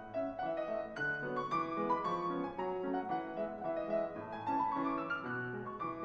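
Grand piano playing a lively polka accompaniment, a solo passage of quick notes without the piccolos.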